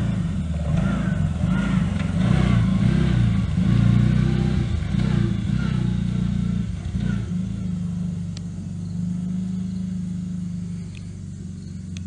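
Off-road vehicle engine running with a low, pitched hum. It is louder and uneven over the first half, then settles to a steadier, slightly quieter run from about seven seconds in.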